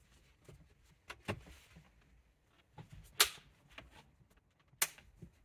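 Light plastic clicks and taps as the small plastic skirt's clips are pressed onto the back of a steering-column clock spring and combination switch unit: a few scattered clicks, the sharpest about three seconds in and another near the end.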